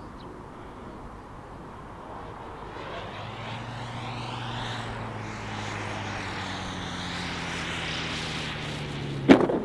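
Radio-controlled scale Focke-Wulf FW-190 model gliding in with a dead engine after an engine failure: a rising rush of air with a low hum that slowly drops in pitch. About nine seconds in, a loud thump as it hits the grass.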